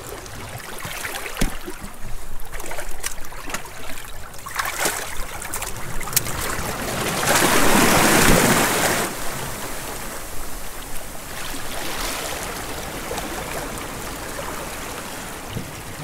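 Shallow seawater washing and sloshing among rocks, with a much louder rush of churning, splashing water lasting about two seconds just past the middle.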